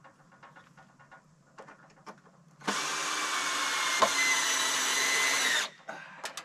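Cordless drill motor running steadily at full speed for about three seconds, with an abrupt start and stop. Faint knocks and clicks come before and after it.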